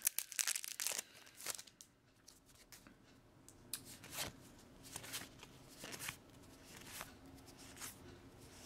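Foil wrapper of a Magic 2013 booster pack crinkling and tearing open, with a burst of crackles in the first second or so. Then the cards are slid one behind another, a short papery stroke about once a second.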